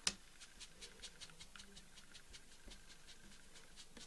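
Dry pastel rubbed over the edge of a foamiran (craft foam) petal to tint it: a quick run of faint, scratchy strokes about five a second, with one sharper click just after it begins.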